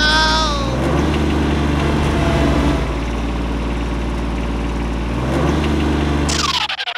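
Tractor engine sound effect idling steadily under a toy tractor, its pitch shifting a little about a second in and again near the end. A brief high squeaky cartoon voice sounds at the very start, and a quick falling whoosh closes it.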